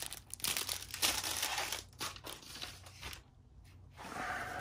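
Small plastic zip bags of round diamond-painting drills crinkling and crackling as they are handled, then a softer, smoother rustle near the end as the canvas is laid flat.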